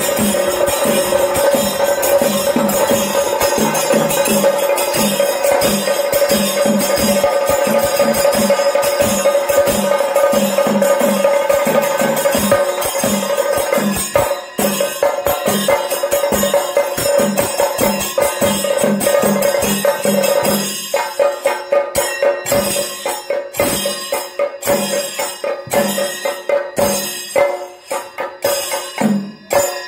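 Chenda melam: chenda drums beaten with sticks and ilathalam hand cymbals clashing in a steady, driving rhythm, with a held ringing note over the strokes. About two-thirds of the way in, the ringing note drops away and the rhythm turns into sharper, separate strokes.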